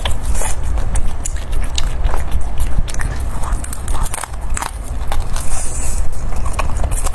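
Close-miked eating sounds: a person chewing, then biting into a glazed piece of meat, with many sharp clicks throughout.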